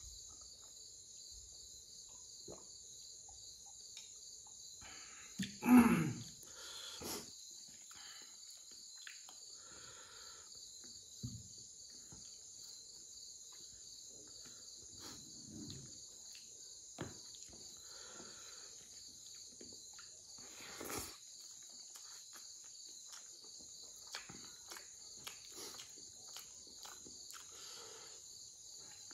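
Crickets chirping steadily, with small clicks of chewing and eating by hand. About six seconds in, a single short, loud sound falling in pitch.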